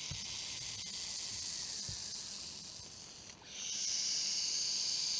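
Snake hissing: a long hiss that fades slightly, breaks off briefly about three seconds in, then a second, louder hiss.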